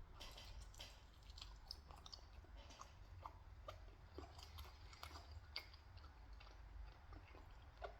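Faint close-up chewing of Papa John's pizza, with many small irregular wet mouth clicks.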